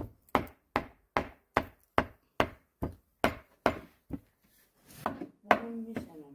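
Knife chopping raw chicken into mince on a wooden board: steady, evenly spaced strikes about two and a half per second, stopping about four seconds in.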